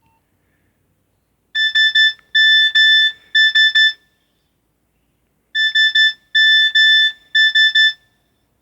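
Nokia 6300 mobile phone playing a beeping ringtone through its speaker: one high tone in a pattern of three quick beeps, two longer beeps and three quick beeps, sounded twice with a pause between.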